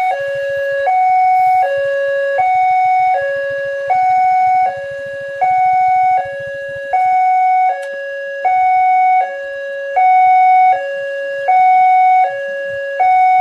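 Railway level-crossing warning siren sounding a steady two-tone hi-lo alarm, switching between a higher and a lower tone about every three quarters of a second, warning that a train is approaching and the barriers are closing.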